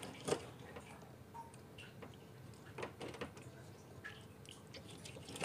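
Kitchen knife cutting raw cuttlefish on a plastic cutting board: a few faint, scattered clicks and wet squishes as the blade goes through the flesh and meets the board.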